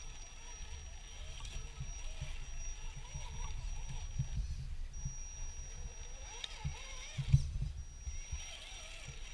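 RC4WD Trail Finder 2 scale RC crawler truck driving through shallow water over rocks: its electric drivetrain running with a thin steady high whine that stops briefly twice, over low rumbling and knocks of tyres on stone. A sharp thump about seven seconds in is the loudest sound.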